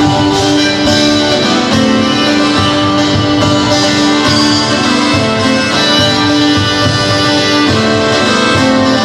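A live folk band playing a tune: an accordion holds sustained notes over a strummed acoustic guitar, with a percussionist joining in on mallets.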